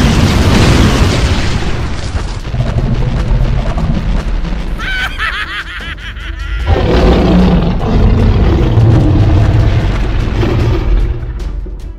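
Loud cartoon soundtrack music mixed with heavy booms, with a wavering high sound about five seconds in, fading out near the end.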